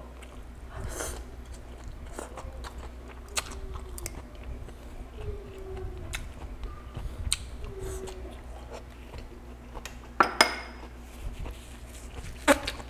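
Close-up chewing and crunching of coleslaw (shredded cabbage), with many small wet mouth clicks and two louder mouth sounds, one about ten seconds in and one near the end.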